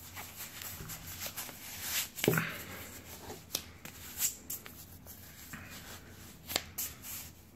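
A stretchy fabric wrist-guard sleeve being pulled up over a forearm and worked into place by hand: rustling and rubbing of cloth against skin, with a few sharp little ticks. The guard's gel pad is still soft and unhardened.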